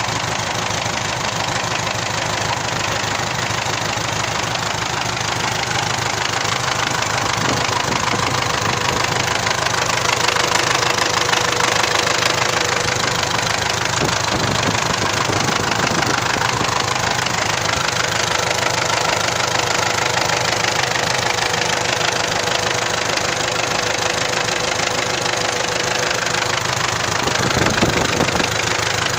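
MTZ-82 tractor's diesel engine running steadily with a clattering knock.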